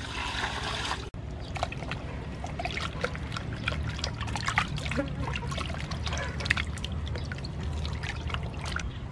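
Water poured from a plastic scoop into an aluminium basin for about a second, then hands rubbing and turning raw oxtail in the water: repeated small splashes and drips as the meat is washed.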